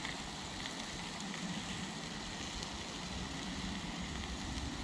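Burgers and onion slices sizzling quietly on a cast iron griddle over low heat, with faint crackles and a low steady rumble underneath.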